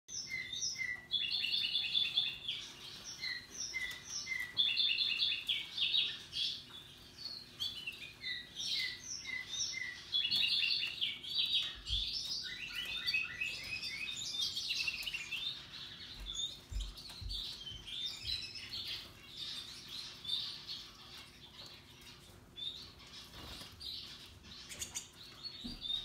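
Caged canaries singing: rapid trills of repeated chirping notes from several birds at once, busiest in the first half and thinning out later.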